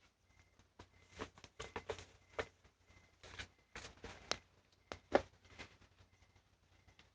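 A child's quiet, short fake coughs and puffs of breath, a string of them at uneven spacing.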